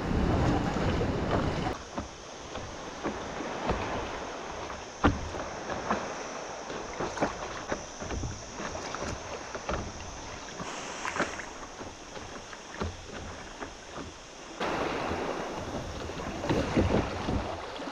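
Paddling on the sea: water splashing and lapping with scattered short knocks of paddle strokes. Wind buffets the microphone at the start and again near the end.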